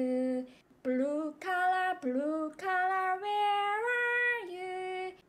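A woman singing a simple children's tune: several short phrases of steady held notes with brief breaks between them.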